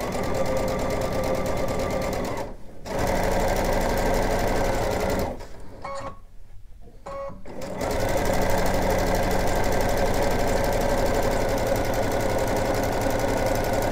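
Domestic sewing machine with a zipper foot stitching a zipper onto fabric, running at a steady speed in three runs, with a brief stop about two and a half seconds in and a longer pause around six seconds in.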